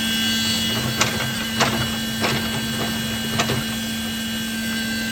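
Machinery at a concrete pour running with a steady hum, broken by four sharp knocks in the first three and a half seconds.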